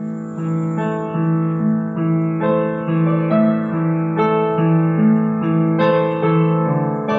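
A child playing the piano: a slow, gentle melody over held low notes, a new note struck about every half second.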